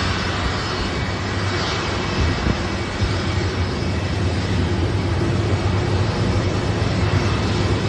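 Steady apron noise around a Boeing 747 under tow by a pushback tug: engine drone with a low hum under a broad rush of noise.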